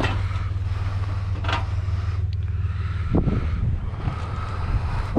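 Vehicle engine idling steadily, with a few light knocks over it.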